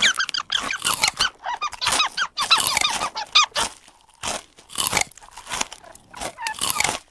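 Grey squirrel squeaking and chattering: short high chirps and clicks in quick runs, with a brief pause about four seconds in.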